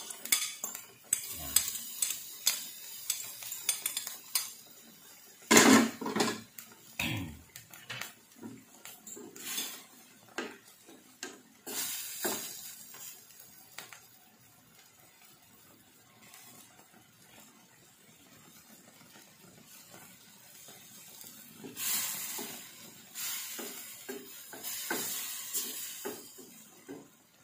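Utensils clinking and scraping against a stainless steel pan of simmering fish and tomato sauce, with a loud knock about six seconds in. It goes quieter in the middle, then a wooden spatula scrapes and stirs in the pan near the end.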